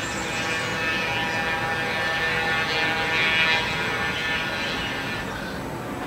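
Electric-hauled freight train rolling past, a rumble with a steady whine over it that swells to a peak about three and a half seconds in, then fades.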